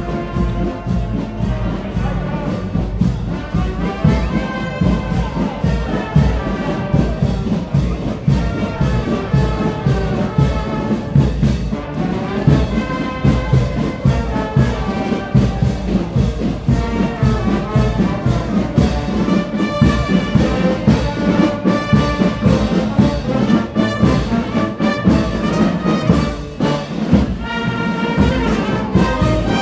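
Brass band playing a march with trombones and trumpets over a steady drum beat, loud and continuous.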